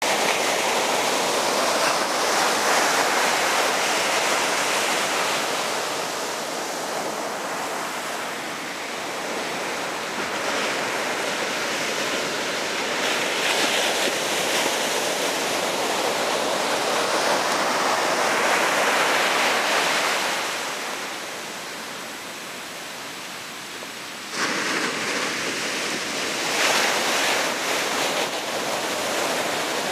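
Ocean surf breaking and washing up the beach: a steady rushing that swells and eases with each wave, jumping up suddenly about 24 seconds in.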